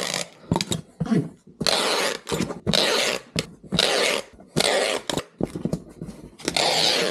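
Clear packing tape being pulled off a handheld tape-gun dispenser onto a cardboard box, in about five rasping pulls of half a second to a second each.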